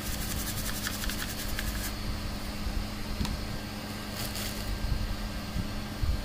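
Quick scratchy scrubbing strokes on the circuit board for about the first two seconds, and briefly again around four seconds in: the freshly soldered diode joint being cleaned of flux. A steady background hum runs underneath.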